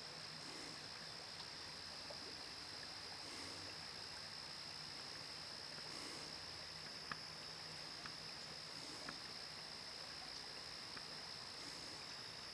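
Faint riverside ambience: a steady high-pitched insect trill over quiet moving water, with soft swells every few seconds and a few tiny ticks.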